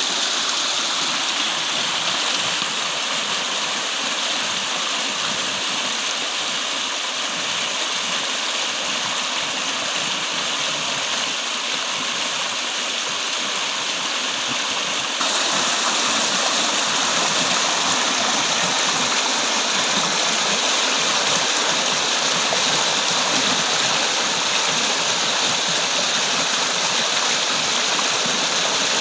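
A fast stream of rainwater rushing and splashing through a bamboo-framed fishing net. It is a steady rush of water that steps a little louder about halfway through.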